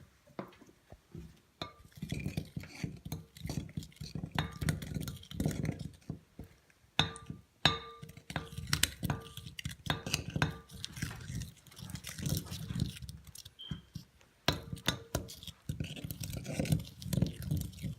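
A utensil stirring Elmer's glue and Gain detergent in a bowl to make slime, with irregular clinks and knocks against the bowl, several of them ringing briefly at the same note.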